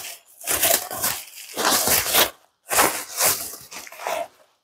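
Packaging being handled and torn open by hand: irregular bursts of crinkling and tearing.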